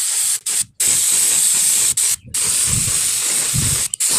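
Paint spray gun hissing as it sprays red paint onto a sewing machine's cast body, cutting off briefly about four times as the spraying stops and starts.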